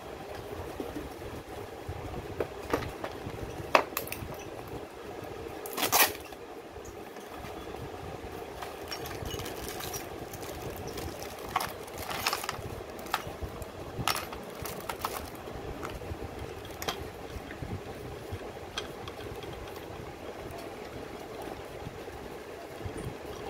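Irregular clicks, knocks and light clinks of small metal parts and fittings being handled and fitted while a slit lamp base and column are assembled, over steady background noise.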